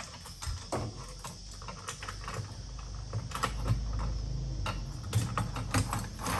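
Rapid, irregular small metal clicks and knocks as bracket hardware is handled and fitted into the tracks of a Rhino-Rack Platform roof rack.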